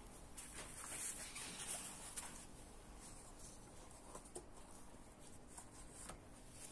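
Faint rustling and scraping of cardboard cards being slid and repositioned by hand on a cloth surface, busiest in the first two seconds, with a few small taps later.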